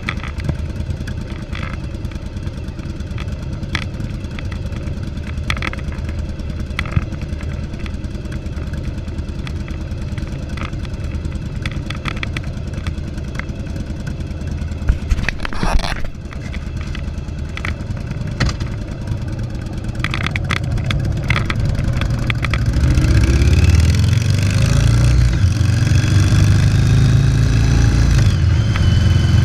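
Yamaha Virago XV750's air-cooled V-twin running through a debaffled exhaust, holding a steady low note with occasional sharp clicks. About two-thirds of the way through it revs up, getting louder with rising pitch.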